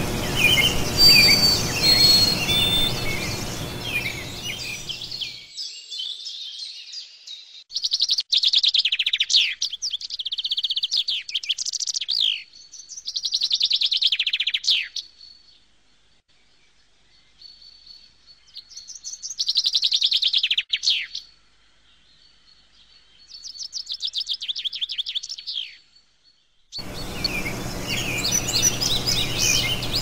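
Music fades out, then a songbird sings a series of fast trilled phrases a few seconds apart, with a faint steady high tone between them. Music comes back in near the end.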